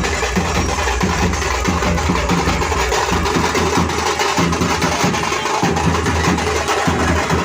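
Dance music with a heavy drum and bass beat, played through a DJ sound system.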